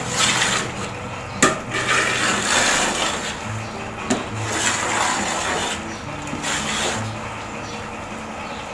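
Ladle stirring thick, bubbling tomato masala in a large metal degchi: wet swishing and sloshing in uneven waves, with two sharp knocks of the ladle against the pot, about a second and a half in and again about four seconds in.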